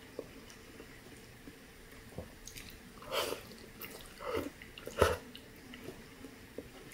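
A person slurping and chewing pho rice noodles in broth, a few short slurps a little after three, four and five seconds in, the one about five seconds in the loudest.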